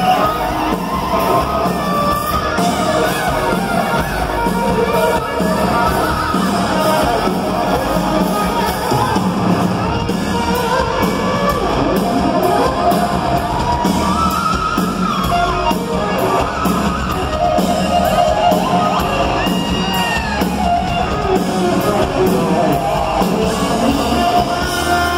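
Heavy rock band playing live through a concert hall PA, heard from the crowd: distorted electric guitar and bass over a steady drum beat, loud and dense throughout.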